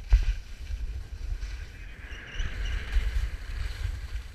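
Wind buffeting the camera's microphone in low, gusty rumbles, with a sharp knock just at the start and a hiss of sliding over snow swelling in the middle.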